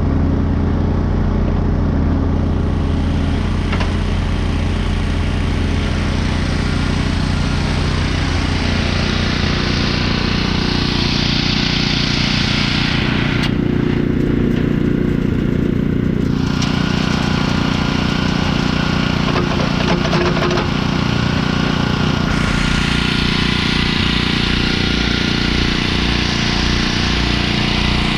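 A small combustion engine running steadily at an even speed, with a hiss of mechanical noise that swells and fades over the top.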